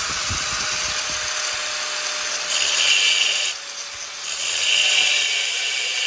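Handheld power tool running steadily under load, grinding or sanding, working harder about two and a half seconds in and again near the end, with a short lighter spell in between.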